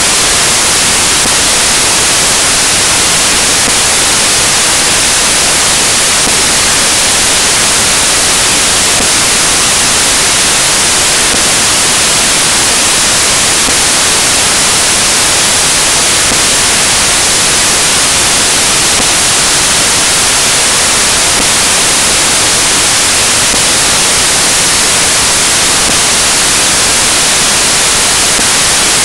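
Loud, steady static hiss like white noise, unchanging throughout, with no speech or other sound in it. It is the sign of a recording or encoding fault rather than anything heard at the scene.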